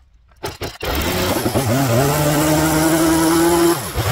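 Echo CS-3510 two-stroke chainsaw starting: a few sharp clicks, then the engine catches under a second in and runs at a steady pitch. The pitch dips briefly and recovers just before the end.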